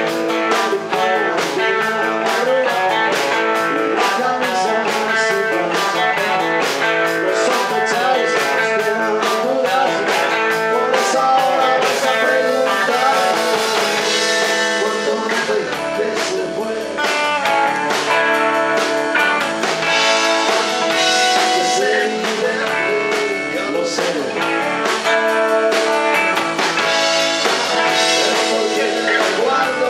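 Live rock band playing: electric guitars over bass and a drum kit, with a man singing at times.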